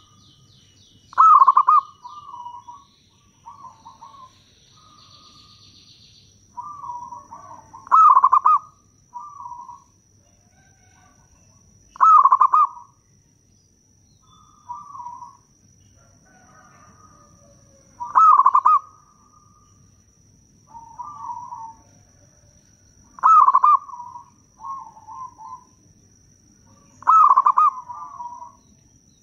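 Zebra dove (perkutut) cooing in full song: six loud bursts of rapid coos, one every four to six seconds, each followed by a few softer coos.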